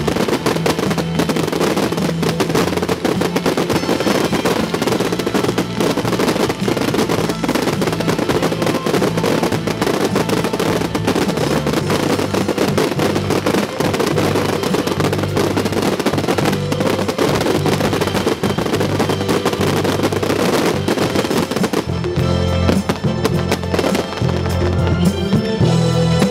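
Dense fireworks barrage of rapid bangs and crackling stars, over loud music with a steady bass line. Near the end the crackle thins and the music stands out more.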